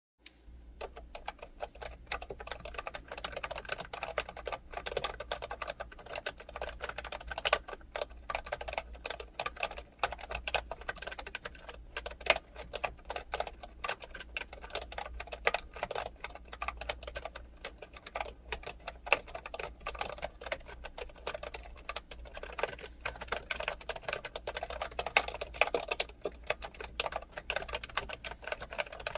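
Computer keyboard being typed on continuously: rapid, irregular key clicks, with a steady low hum underneath.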